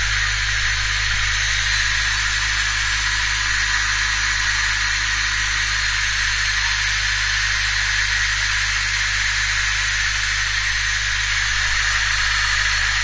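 1998 Honda Civic DX engine idling steadily after a ram air intake install, with a constant airy hiss.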